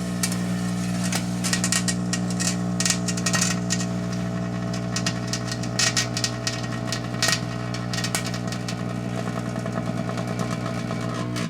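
Microwave oven running with a loud steady electrical hum while fireworks burn and arc inside it, crackling and popping throughout; the hum cuts off at the very end as the oven stops.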